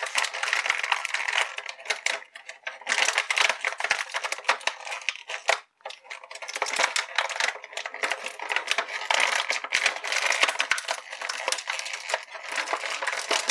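Clear plastic blister tray crinkling and crackling as it is bent and worked to free an action figure, in several bouts of dense small clicks and crackles with short pauses between.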